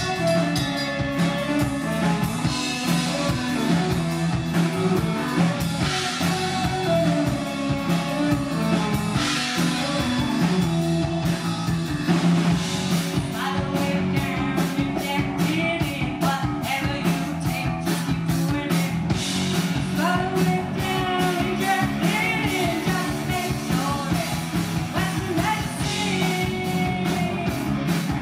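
Live rock band playing: electric guitar, electric bass and drum kit, with a flute melody in the first part and a woman's lead vocal later on.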